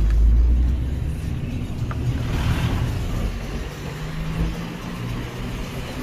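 A motor vehicle passing on a nearby road: a low rumble, heaviest in the first second, with a swell of tyre-and-engine noise about two seconds in that fades away.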